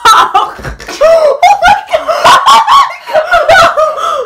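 Loud laughter, voices breaking into quick rising and falling peals throughout.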